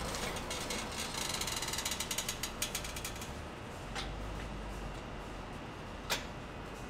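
Homemade motor-driven gyroscope barbecue grill turning its steel frame and meat basket. Its gearing and pivots make a rapid run of ratcheting clicks about a second in, lasting about two seconds, then two single clicks later on.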